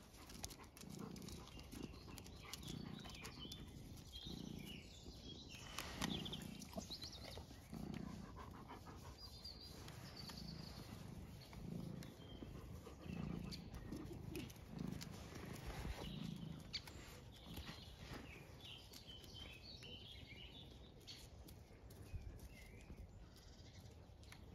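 Dog panting softly and rhythmically, about one breath a second.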